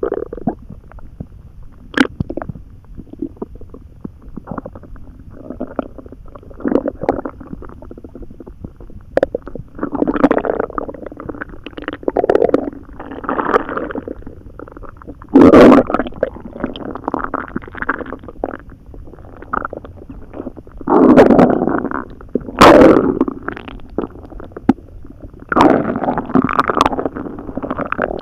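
Human stomach rumbling, an irregular run of gurgles and squelches of varying length, several of them loud, in the second half. It is digestive upset after a few barely chewed hot dogs gulped down with a lot of water.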